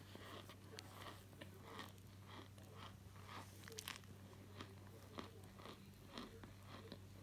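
Faint, repeated crunching of chunks of powdery starch being pressed and crumbled with a metal spoon, about two crunches a second.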